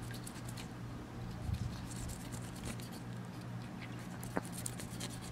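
Fillet knife slicing through a snook's scaly skin and flesh, a run of small crackling ticks as the blade cuts over and through the scales, with one sharper click a little after four seconds in.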